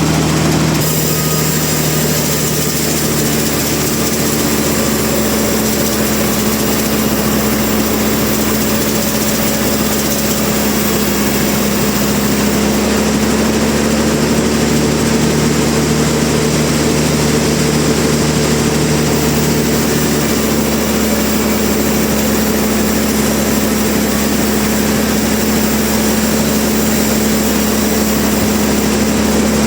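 Sawmill machinery running steadily, a motor hum with a few held tones over a dense mechanical noise; the sound shifts slightly about a second in.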